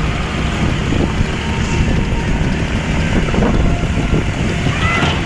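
Heavy vehicle engines rumbling steadily, with a short arching high-pitched tone just before the end.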